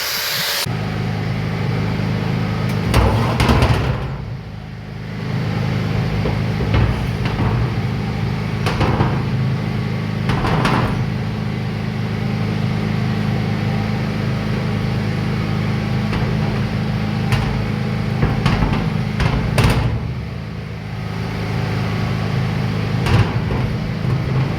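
A loud hiss cuts off just after the start, leaving a machine running with a steady low hum, broken by occasional knocks and clatters.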